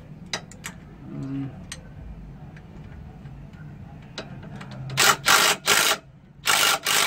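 Ratchet wrench clicking as the belt adjuster bolt on a Nissan 300ZX is turned to slacken the drive belt. It gives a few separate clicks at first, then loud quick runs of ratcheting about five seconds in and again near the end.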